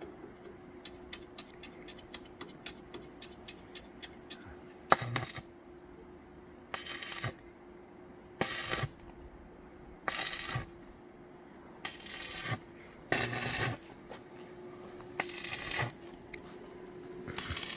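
Welding on steel: about seven or eight short bursts of crackling welding arc, each lasting under a second, like tack welds. A steady low hum runs underneath, and a scatter of sharp metallic ticks comes in the first few seconds.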